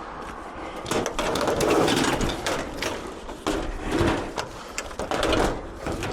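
Scrap appliances being handled and moved: irregular knocks, rattles and scraping.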